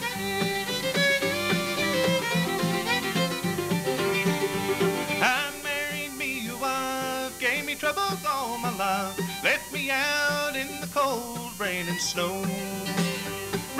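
Acoustic bluegrass band playing an instrumental break: fiddle lead with sliding, wavering notes over acoustic guitar, mandolin and upright bass.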